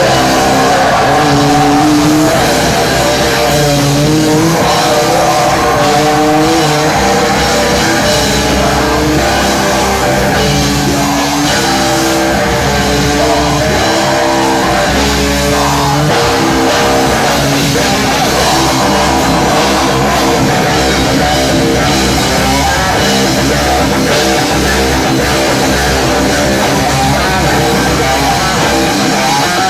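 A live heavy rock band playing loudly: electric guitar, bass and drum kit, with a singer shouting into a microphone.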